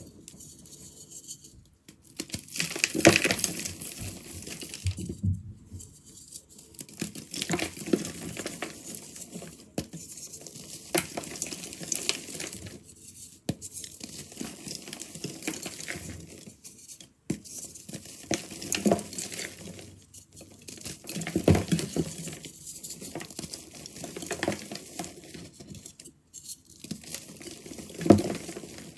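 Crunchy reformed gym-chalk blocks crushed and crumbled by hand: dry crunching and crackling in irregular bursts with short pauses between squeezes, and loose powder and crumbs pattering down.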